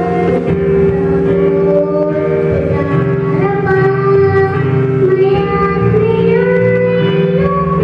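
A young girl singing a Tagalog children's praise song into a handheld microphone over instrumental accompaniment, her voice moving through held, sliding notes.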